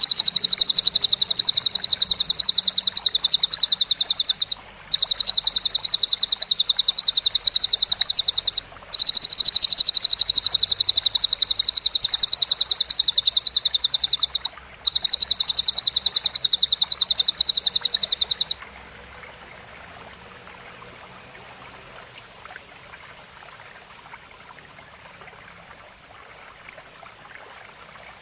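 Masteran recording of cililin and belalang material for training contest birds: a high-pitched, very rapid buzzing trill in four long runs, each several seconds long, with brief pauses between them. The trill stops about two-thirds of the way through, leaving a faint background hiss.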